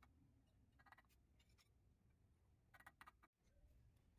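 Faint, light tapping in three short clusters: the wooden handle of a mason's trowel tapping ceramic tile strips down to bed them into fresh mortar.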